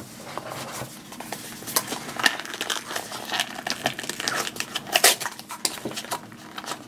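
Small cardboard blind box taken from a display case and torn open by hand: scattered crinkling, scraping and tearing of thin card, with a few sharper snaps.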